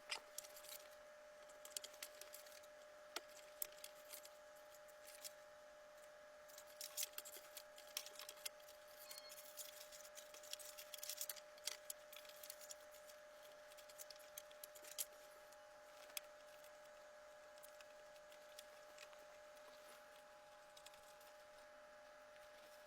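Faint scattered clicks and light clinks of small PC parts being handled, over a faint steady hum. The clicks thin out after about two-thirds of the way through.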